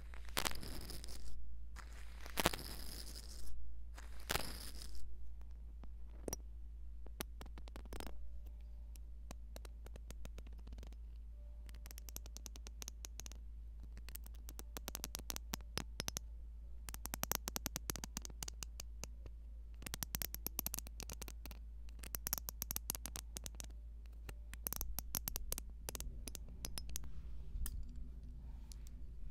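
Brush bristles swept and rubbed over a tablet's microphone: a few soft swishes in the first five seconds, then scratchy crackling clicks in clusters, over a steady low hum.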